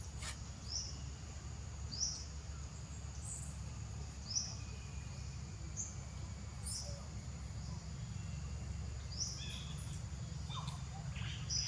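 Outdoor woodland ambience: a steady low rumble and a constant high insect drone, with a bird's short high chirps every second or two and a few busier calls near the end.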